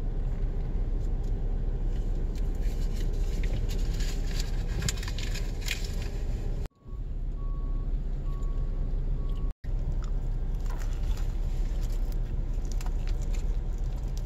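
City street noise: a steady rumble of traffic with heavy low-end noise, cut off abruptly twice. In the middle part a faint electronic beep repeats about five times.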